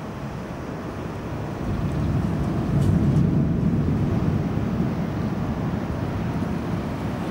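Rolling thunder: a low rumble swells about two seconds in, peaks a second later and slowly dies away.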